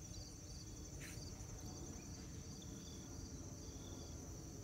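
Insects trilling steadily in a high, continuous pitch, with shorter chirps repeating over it, above a low outdoor rumble.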